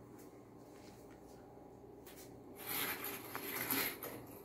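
Faint room hum, then about two and a half seconds in a noisy rush of sound comes in: the audio of a video starting to play through a TV and its soundbar.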